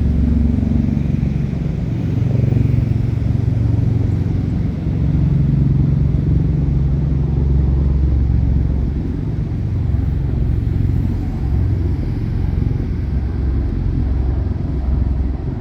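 Bell Boeing V-22 Osprey tiltrotor aircraft flying over: a loud, low droning rumble from the proprotors that swells and is loudest in the middle.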